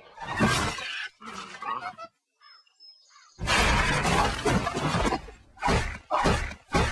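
Fight-and-crash sound effects for a stop-motion puppet brawl. Short bursts of scuffling come first, then a brief pause. About halfway through, a loud crash of splintering wood and shattering debris as the fighters smash through a wall, followed by a few sharp impacts.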